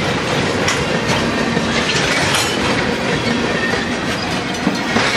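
Freight train's tank cars rolling past at a level crossing, the last cars of the train going by. Steel wheels clack sharply over the rail joints at irregular intervals.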